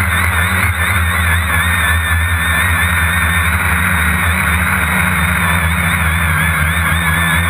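Electric motor and propeller whine of an RC aircraft, heard from a camera on board: a steady high whine that wavers up and down in pitch as the throttle changes, over a low hum and rushing air.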